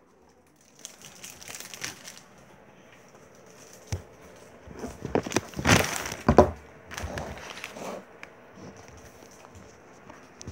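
Rustling, crinkling handling noise with a few knocks as the recording phone is moved and turned about, loudest about five to seven seconds in.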